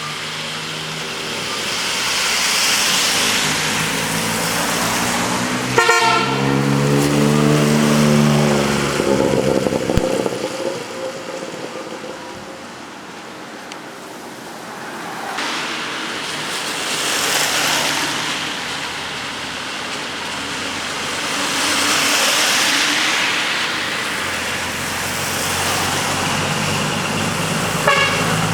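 Decorated trucks pulling out one after another, their engines and exhausts swelling and fading as each passes. About six seconds in, a truck's air horn sounds a chord of several notes for about three seconds.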